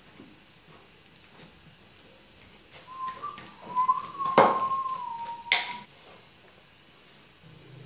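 A fork mashing ripe bananas in a glass bowl, striking the glass with two sharp clinks, about four and five and a half seconds in. Across the middle three seconds a thin, steady whistling tone holds at one pitch, wavering slightly.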